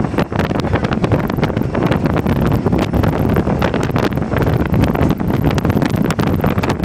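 Wind buffeting the microphone at the open cab window of a moving diesel locomotive, over the locomotive's steady running noise.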